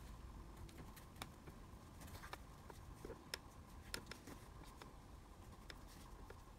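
Near silence: faint room tone with a few small, scattered clicks and light rustling as fingers handle the cloth and pull loose thread ends.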